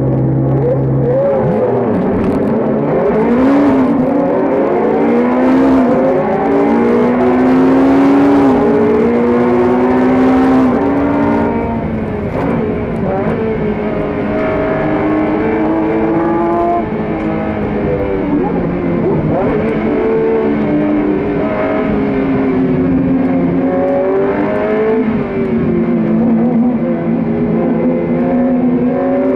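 A GT3 race car's engine, heard from inside the cabin. It holds steady revs for about a second, then accelerates hard, its pitch climbing and dropping with each upshift. About eleven seconds in it falls away under braking and downshifts, then revs up and down again through the following bends.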